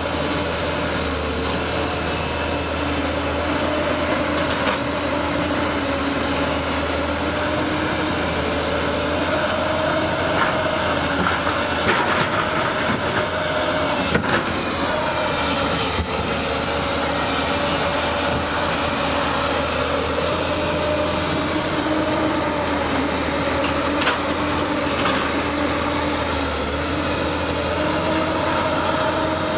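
Diesel engine of a CAT 320C hydraulic excavator running steadily under working load while digging, its pitch rising and falling a little as the arm moves. A few sharp knocks come through near the middle.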